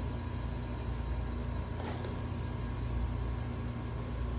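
Steady low mechanical room hum with a faint steady tone in it, and one faint brief sound about two seconds in.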